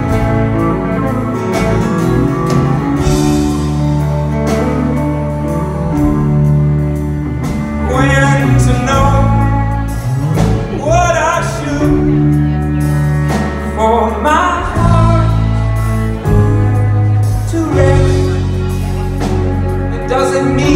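Live folk-rock band playing acoustic guitar, banjo, cello and drums, with male lead singing coming in about eight seconds in, recorded from the audience.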